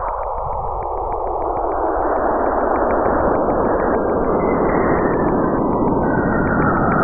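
A 'sound of space' recording of the kind made from spacecraft radio or plasma-wave data: a dense rushing hiss that swells steadily louder, with faint ticks about five times a second running through it.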